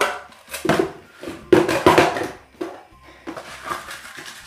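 Handling noise: irregular knocks and rustles of objects being moved, with a few louder bumps in the first two seconds.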